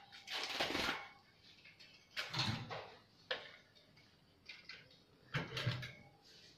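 Bird cages being handled and set down: about five short scraping, rattling knocks with quiet gaps between them.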